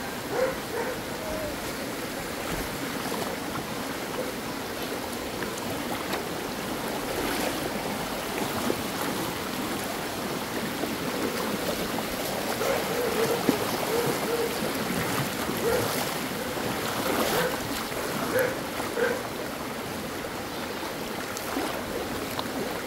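Shallow river rushing and gurgling over rocks and boulders, a steady wash of running water.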